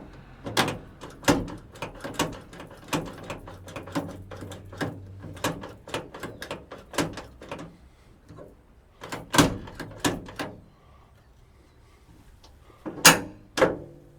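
Door latch mechanism and door of a 1963 Chevrolet C10 pickup being worked by hand while the new latch is adjusted: a run of irregular metal clicks and clunks, a quieter stretch, then two loud clacks about a second apart near the end.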